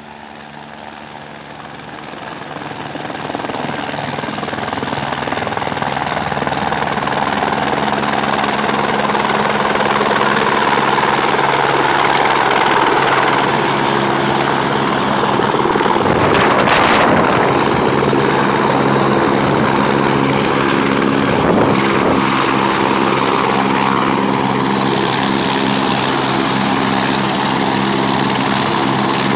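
Light helicopter coming in and landing, its rotor and engine sound growing louder over the first several seconds. It then runs steadily on the pad with the rotor turning, and a high whine joins in about two-thirds of the way through.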